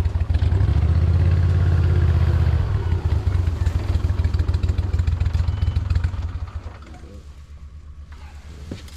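Boat motor running loud with a fast low pulse, then easing off about six seconds in to a quieter run.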